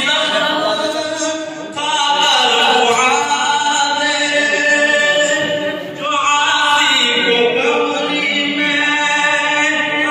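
A male voice singing a naat unaccompanied through a PA system, in long held melodic phrases with short breaks about two and six seconds in.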